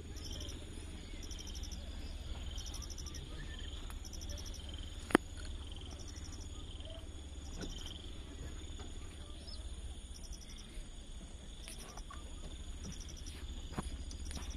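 Insects chirping in short pulsed bursts about once a second, over a steady low rumble. A single sharp click about five seconds in is the loudest sound.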